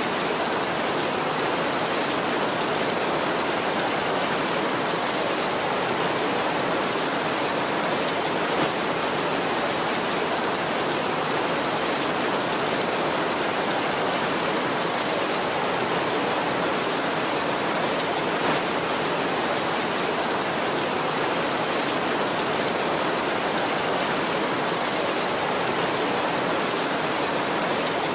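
Heavy rain falling steadily: an even, unbroken hiss with no thunder in it.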